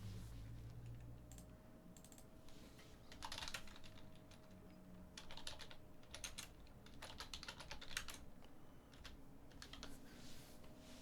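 Faint computer keyboard typing, in several short flurries of keystrokes with pauses between.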